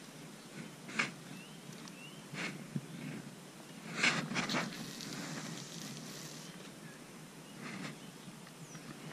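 A spinning rod and reel being handled: scattered clicks and rustles, with a louder flurry of clicks and then a hiss about four seconds in as the rod is swung up.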